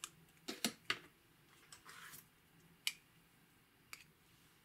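Sharp plastic clicks and taps as a pear-shaped plastic lip balm pot is twisted open and handled, several in the first second, then single clicks near three and four seconds in. A short soft scrape about two seconds in.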